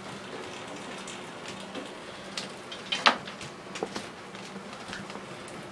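Scattered small clicks and knocks over a faint steady hum, the loudest a short crackling knock about three seconds in.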